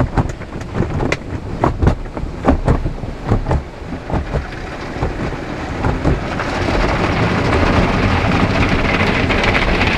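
Automatic drive-through car wash heard from inside the car cabin. For the first few seconds, water splashes against the body and windows with irregular knocks. From about six seconds in, the sound turns into a steady, louder rush of spray and cloth wash brushes sweeping over the car.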